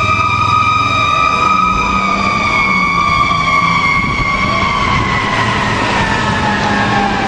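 Fire truck siren holding one high tone, then sliding slowly lower in pitch through the last few seconds, with the truck's engine running underneath.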